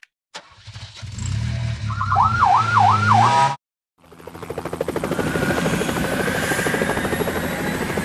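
Cartoon sound effects: a police car's engine running with its siren warbling quickly up and down, cutting off sharply after about three and a half seconds. After a short gap, a helicopter's rotor chops in rhythm with a rising engine whine, growing louder.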